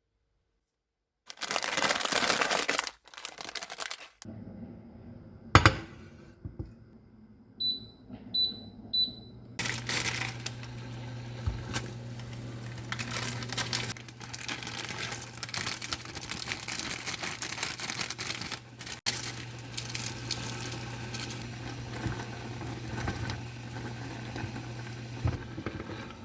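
Plastic crinkling and a sharp click, then three short electronic button beeps from a kitchen appliance. The appliance starts running with a steady low electrical hum, with light handling clatter over it.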